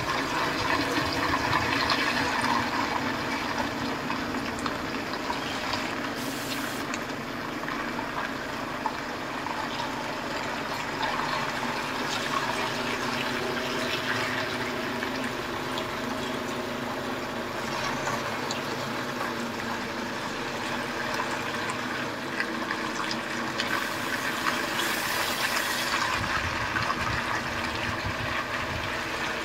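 Heavy articulated truck reversing slowly: its diesel engine runs steadily at low revs, with a wet hiss from the tyres rolling over slushy ground.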